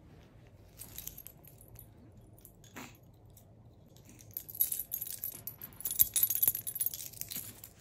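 A bunch of keys on a keyring jangling, shaken by hand: a dense run of bright metallic clinks starting about halfway through and running on. Two faint brief sounds come earlier.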